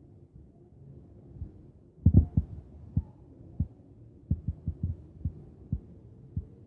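Irregular low thuds and taps of fingers tapping and handling a phone close to the microphone, a dozen or so, starting about two seconds in.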